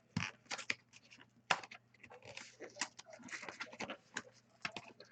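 Hands struggling with sealed trading-card box packaging: irregular crinkling, scraping and clicking of the wrapping and cardboard, which is hard to open.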